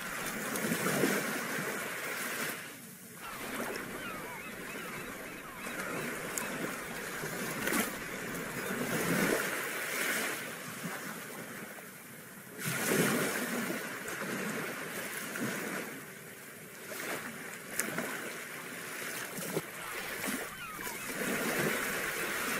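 Sea waves washing, with wind noise on the microphone, rising and falling in irregular surges.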